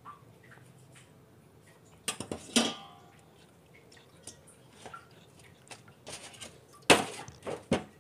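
Clinks and knocks of a stainless steel bowl against a stainless steel kitchen sink as wet cuttlefish is handled in it. There is a cluster of knocks about two seconds in, one with a short ring, light ticks after it, and the loudest knocks near the end.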